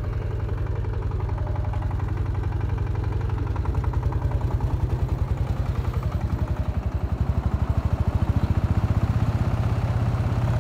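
Small 15-horsepower tractor engine running at full throttle under load, driving a PTO-driven Chuvash rotary mower through tall proso millet. A steady, evenly pulsing engine note that grows louder about four seconds in.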